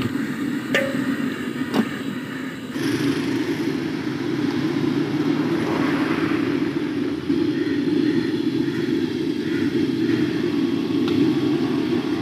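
Hot oil sizzling in a deep-fry wok of potato chips, with a couple of sharp clicks, for about the first three seconds. It then cuts to a steady low rumble.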